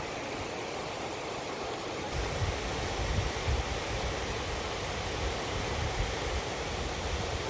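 Steady rush of river water, with low rumbling on the microphone from about two seconds in.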